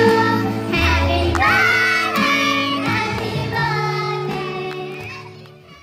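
Music with a singing voice over a steady bass line, fading out over the last couple of seconds.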